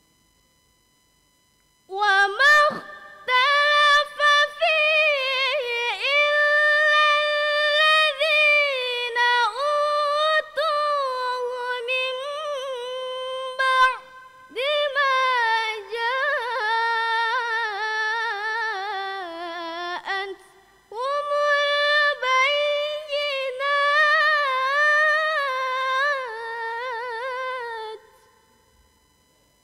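A girl reciting the Quran in the melodic tilawah style: one high voice in long held, ornamented phrases that start about two seconds in, with breath pauses about halfway and two-thirds of the way through.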